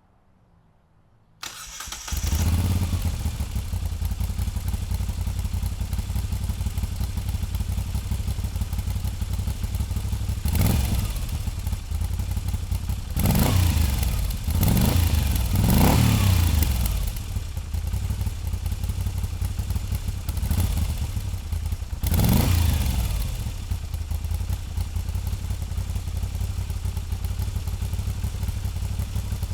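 Moto Guzzi V7 850's transverse V-twin starting about a second and a half in, then idling. Several short throttle blips in the middle rise and fall in pitch before it settles back to a steady idle.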